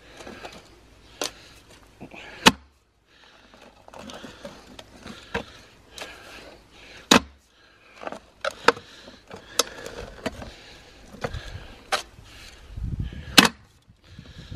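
Steel clamshell post hole digger jabbing into dry, stony soil, about ten sharp clanking strikes at irregular intervals with crunching and scraping of dirt between them, the loudest about two and a half seconds in and near the end, as a post hole is dug.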